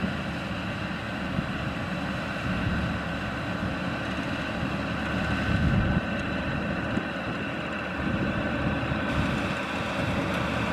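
Maxxi Bimo Xtreme rice combine harvester running steadily while harvesting: a dense engine and machinery hum with several steady whining tones over it.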